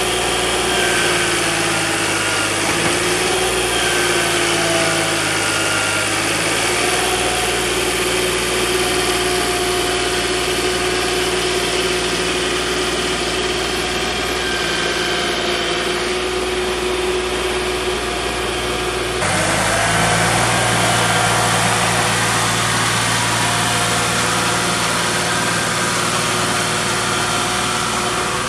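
Turbo diesel engine of a New Holland 885 Turbo skid steer loader running steadily while it lifts and carries a heavy oak log, its note wavering slightly. The engine sound shifts abruptly about two-thirds of the way through.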